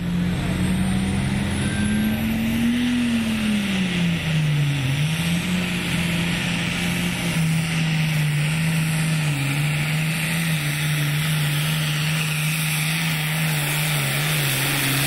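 Turbocharged International diesel pulling tractor running hard under load as it drags the weight-transfer sled. Its engine note climbs slightly, sags about four seconds in, then holds steady and loud.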